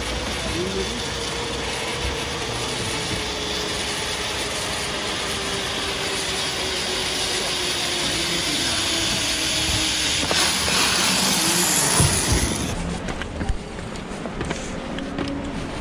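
Zip-line trolley pulley running along the steel cable: a steady rushing whir with a faint tone slowly falling in pitch, growing louder until it stops suddenly about 13 seconds in, followed by a few knocks.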